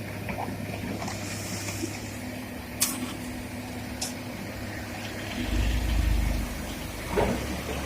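Komatsu PC200 hydraulic excavator's diesel engine running steadily. Two sharp clicks come in the middle, the deep rumble swells for about a second past the middle, and there is a knock near the end.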